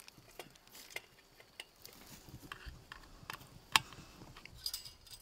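Irregular small clicks and clinks of metal hardware being handled and fitted on a weather-station mast, with one sharp click standing out a little under four seconds in.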